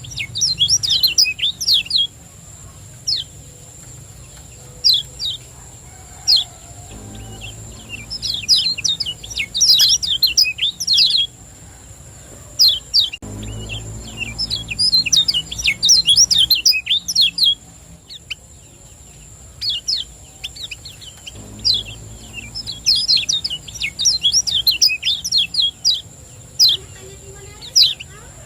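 Kecial kuning (a white-eye) singing its fast 'ciak-ciak' chirping song: rapid runs of short, high, falling chirps lasting a few seconds each, with single chirps in between. A faint steady high-pitched whine runs underneath.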